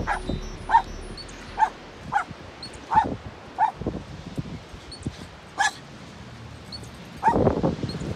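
An animal giving short, sharp calls, about one every half second to second, with a pause near the middle and a louder cluster of calls about seven seconds in.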